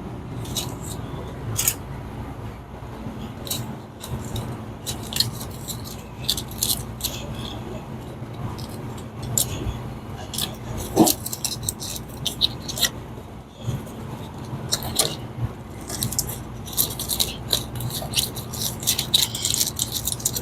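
Clicks, light rattles and rustling of hand work inside a TurboChef oven as insulation is pushed back and parts are secured, busier near the end, over a steady low hum.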